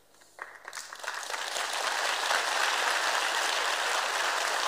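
A large audience applauding. After a brief hush the clapping starts about half a second in, builds within a second and then keeps on steadily.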